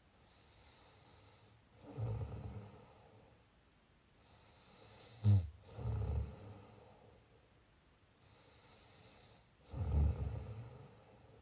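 A person snoring in a regular rhythm: three loud, low snores about four seconds apart, with quieter breaths between. The second snore opens with a short, sharp catch.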